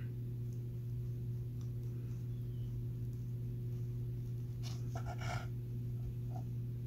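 Serrated knife cutting a slice off a soft cake of brown rice bound with oyster mushroom mycelium on a wooden cutting board, with a short cluster of scraping sounds about five seconds in as the blade comes through. A steady low hum runs underneath.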